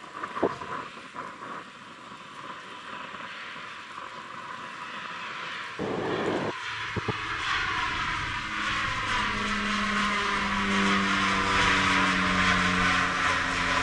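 HC-144 Ocean Sentry twin-turboprop aircraft flying past, its two General Electric CT7 turboprops and propellers droning steadily and growing louder as it comes overhead. A couple of sharp knocks sound near the start.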